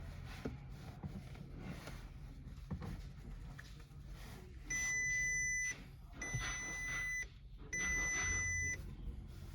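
Three long electronic beeps, each a steady high tone about a second long, evenly spaced in the second half. Faint background noise with small clicks runs beneath them.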